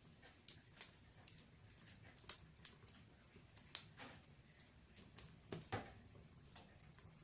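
Wood fire burning in a fireplace: irregular sharp crackles and pops of the burning logs, with a couple of louder snaps, over a faint low rumble.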